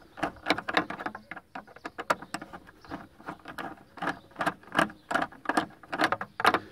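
A screwdriver turning out the lower tail-light screw on a Volkswagen Touareg, with quick, irregular clicking and ticking as it is worked.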